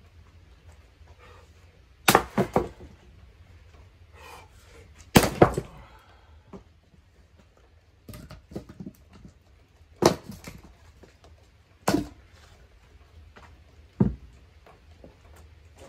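Splitting maul striking hardwood rounds: six sharp, loud knocks a few seconds apart, some followed at once by a second crack as the wood breaks apart.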